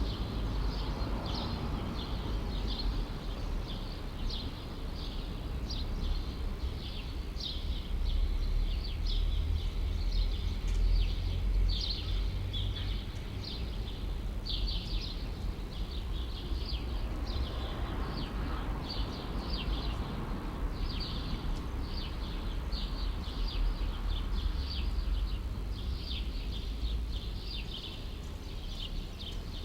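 Small birds chirping in quick, repeated short notes throughout, over a steady low rumble of city background noise.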